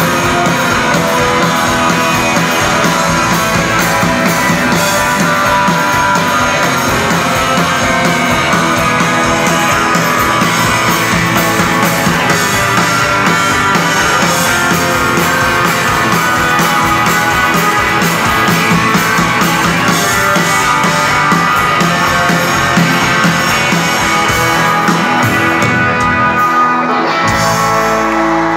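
Live rock band playing: electric guitars, bass and drums. Near the end the drums drop out and a chord rings on.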